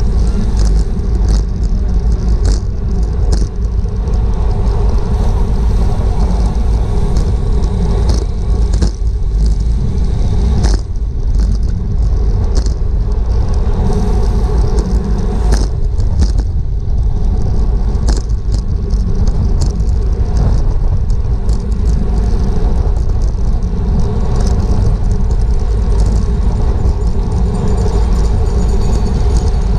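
Steady rumble of wind across a bike-mounted GoPro's microphone at racing speed on a road bicycle, with scattered sharp clicks and rattles from the bike over the road.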